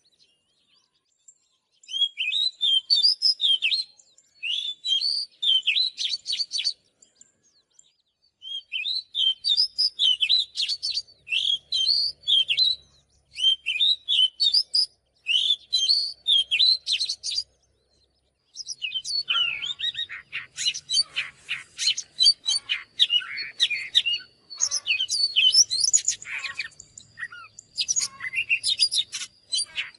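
Oriental magpie-robin singing: phrases of quick, varied whistles and chirps a few seconds long, separated by short pauses, turning into almost continuous, denser song in the last third.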